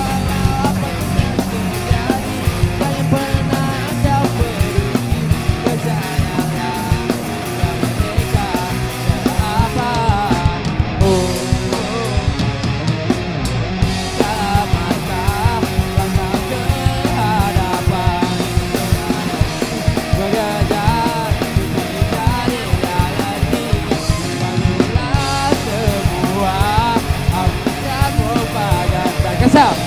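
Rock band playing an instrumental passage on electric guitars, bass and drum kit, with a lead melody that bends up and down in pitch over the steady beat.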